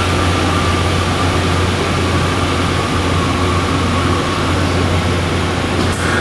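Explosion-proof scissor operator lift running as its platform lowers: a steady mechanical drone with a low hum and a hiss over it.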